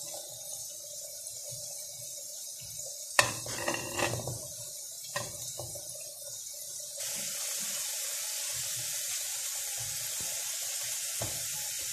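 Pot of chard in spiced tomato sauce simmering with a steady hiss, with a few soft knocks and scrapes of a silicone spatula and plate as fried potato chips are spread over it. The hiss grows fuller about seven seconds in.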